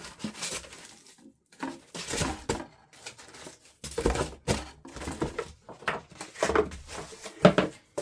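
Irregular rustling, knocks and light clatter of parts and packaging being handled and set down on a bench.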